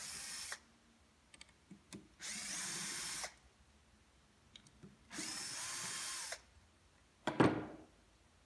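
Power drill-driver backing out the bearing-retainer screws on a router's bottom bearing housing, running in three short bursts of about a second each with small clicks between. Near the end comes a brief, louder sound that falls in pitch.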